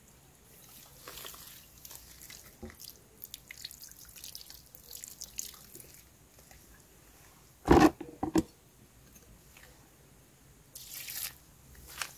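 Water from a hose splashing and dripping into a metal cooking pot as a plucked whole chicken is rinsed, with many small splashes and drips. About eight seconds in come two short, much louder sounds close together.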